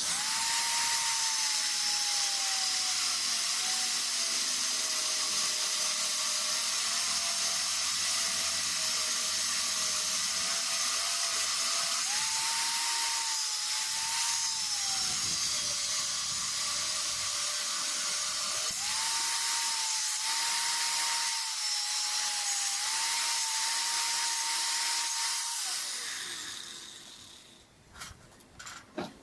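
Electric angle grinder running on steel. Its motor whine drops as it is pressed into the work and climbs back when eased off, several times over a steady grinding hiss. It winds down near the end, followed by a few light clicks.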